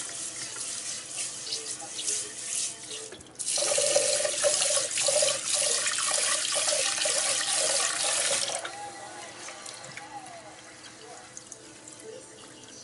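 Rice being washed by hand in a pot at a kitchen sink: grains swished in water, then the tap runs into the pot for about five seconds and shuts off, leaving quieter sloshing as the rice is stirred.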